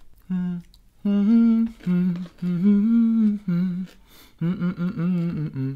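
A woman humming a slow tune in short phrases of held, gliding notes.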